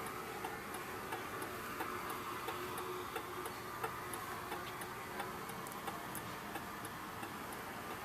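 Hazard flasher relay of a 1983 Subaru GL clicking steadily with the four-way flashers on, about three clicks every two seconds.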